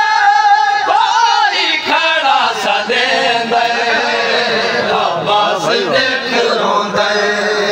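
Men's voices chanting a Saraiki noha, a Shia mourning lament, several voices overlapping.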